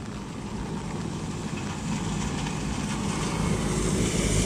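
A motor vehicle approaching on a wet road, its engine rumble and tyre hiss growing steadily louder.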